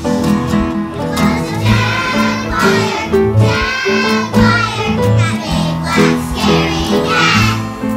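Children singing a song with instrumental backing of bass and chords. Two long sung notes waver in pitch, one about halfway through and one near the end.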